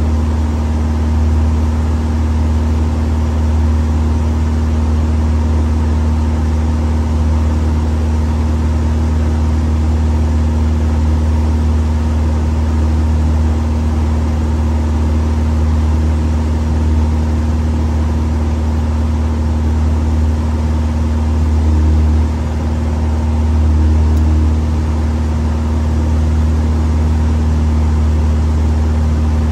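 RV-10's six-cylinder Lycoming engine and propeller making a steady drone inside the cabin on approach. The drone dips briefly about twenty-two seconds in, then swells for a couple of seconds.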